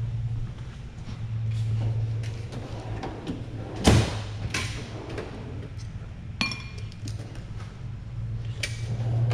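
Hand tools and metal engine parts knocking and clinking on a workbench: a sharp knock about four seconds in, a lighter one just after, a ringing metallic ping around six and a half seconds, and another click near the end. A steady low hum runs underneath.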